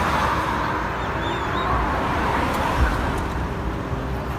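Road traffic noise: a passing vehicle fading away over a steady low rumble, with a few faint high chirps about a second in and a brief low thump a little past halfway.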